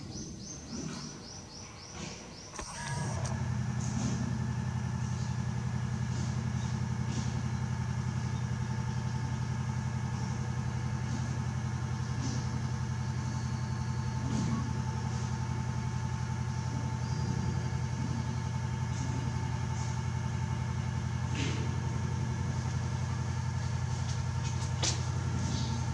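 A machine motor starts about three seconds in and runs with a steady low hum, then cuts off suddenly at the end. A quick run of light ticking comes just before it starts.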